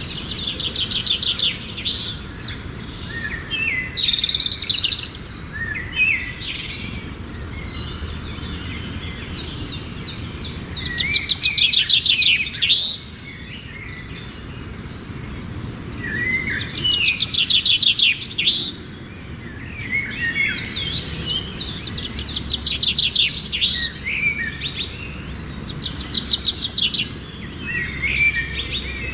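Small birds chirping and singing, with repeated bursts of fast trilled chirps every few seconds.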